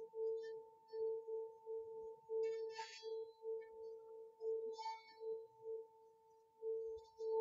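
A steady ringing tone, pulsing on and off a couple of times a second, played as sound energy for healing. Two brief metallic clinks are heard about three and five seconds in.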